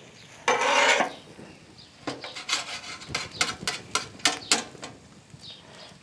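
Metal spatula scraping and tapping on the steel plate of a Blackstone tabletop flat-top griddle as French toast is flipped and pushed along. There is one longer loud scrape about half a second in, then a quick run of clicks and scrapes between about two and four and a half seconds.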